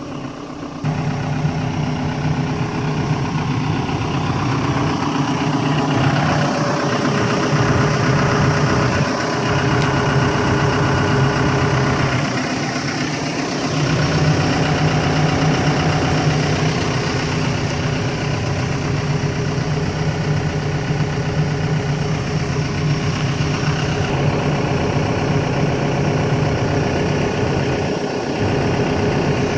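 Diesel engine of a Volvo EC140 LC hydraulic excavator idling steadily.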